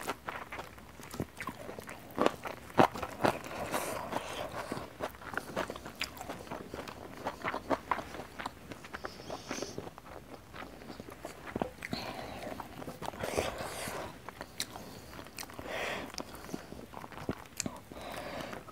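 Close-miked chewing and biting: a person eating rice and spicy fried beef lung by hand, with irregular wet mouth clicks and small crunches.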